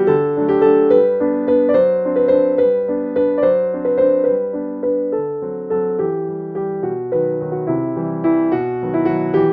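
Background piano music: a gentle melody of struck notes over soft chords, each note fading away after it sounds.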